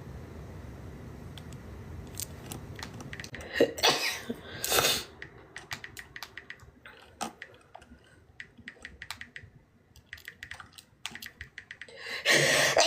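A woman sneezing: two loud sneezes a second apart about four seconds in, then scattered light clicks, and another sneeze near the end.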